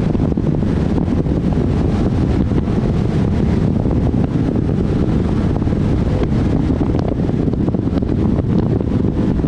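Steady low roar of wind buffeting the microphone of a deck-mounted camera on a 28-foot Nordic Heat V-hull powerboat running at high speed, with the boat's engine and hull-on-water noise mixed in underneath.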